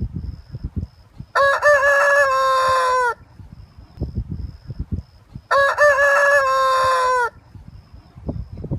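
Rooster crowing twice, each crow nearly two seconds long and dropping in pitch at its end. Low, irregular thuds and rustling fill the gaps between the crows.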